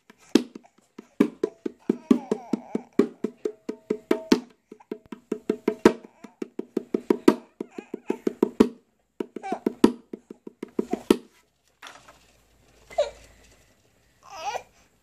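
Baby activity jumper's electronic toy playing a fast percussive tune of wood-block-like beats, about six or seven a second with short breaks, stopping about 11 seconds in. A baby then gives a short gliding coo, and another near the end.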